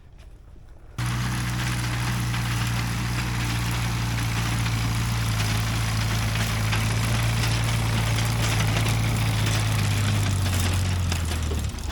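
Tractor engine running steadily at low revs, starting abruptly about a second in; its pitch dips slightly near the end.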